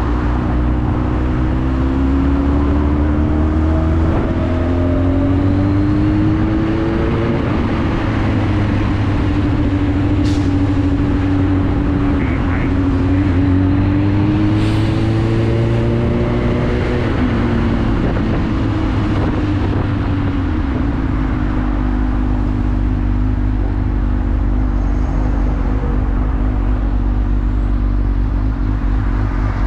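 Sport motorcycle's engine under way, its pitch rising twice as the throttle opens and then easing back to a steady lower note, over continuous wind and road noise. Two brief sharp clicks stand out in the middle.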